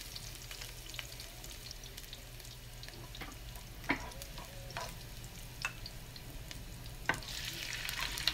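Garlic frying in hot oil in a pan, sizzling steadily while a spatula stirs it, clicking and scraping against the pan every second or so. The sizzle grows louder near the end.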